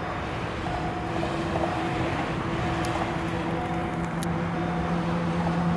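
EU07 electric locomotive hauling a container freight train on approach, a steady running hum with several held tones over a noise haze, growing slowly louder. A lower, stronger tone comes in about three seconds in.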